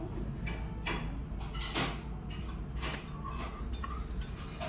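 Dishes and cutlery clinking now and then over a steady low hum.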